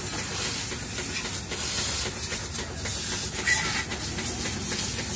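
Garden hose spraying a jet of water, the end pinched with a thumb, splashing onto a motorcycle: a steady hiss and spatter.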